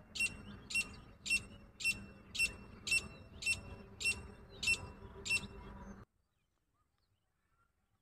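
Female grey francolin calling: a series of about ten sharp, identical notes, close to two a second, ending abruptly about six seconds in.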